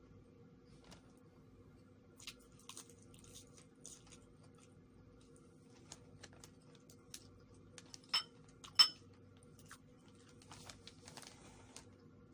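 Quiet sounds of a person eating leafy greens: scattered small clicks and light rustling, with two sharp clicks about eight and nine seconds in, over a steady low hum.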